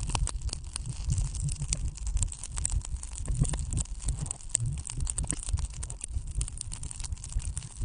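Water beads in a plastic cup stirred with a wooden stick, the cup held against a microphone: a dense, continuous run of small clicks over low thuds.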